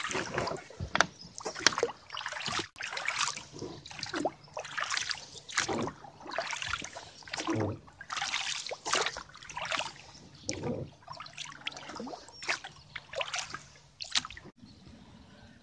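Oars dipping and pulling through calm lake water as a small inflatable boat is rowed, with splashing, sloshing and dripping on each stroke.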